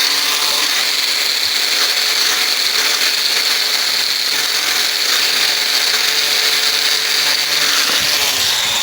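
Small handheld power tool running steadily with a high-pitched whine as it sands down metal parts.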